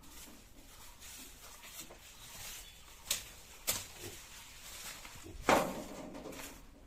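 Leaves rustling as shoots are picked off a climbing vine by hand, with three sharp knocks: two close together about three seconds in and the loudest about five and a half seconds in.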